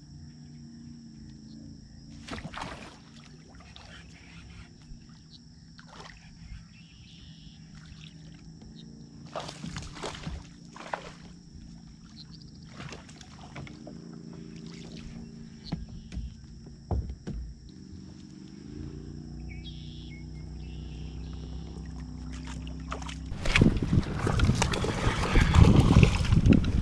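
A motor hums steadily with a low, even tone that rises in pitch about two-thirds of the way through, under scattered sharp clicks and knocks. Near the end a loud rushing noise comes in and becomes the loudest sound.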